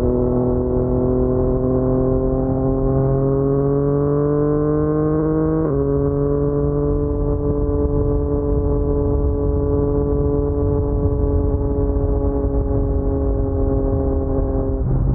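Yamaha MT-09's three-cylinder crossplane engine through an Akrapovic carbon full-system exhaust, riding under power. The pitch rises steadily for about six seconds, drops suddenly at an upshift, then holds almost level and eases slightly before another drop near the end.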